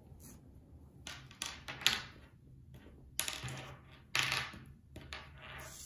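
Knit T-shirt yarn rustling as it is pulled through the fingers and the crocheted piece, in four or five short swishes, with one sharp click about two seconds in.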